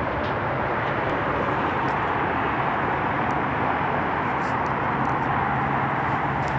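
Steady rushing noise with a continuous low hum underneath, typical of distant road traffic.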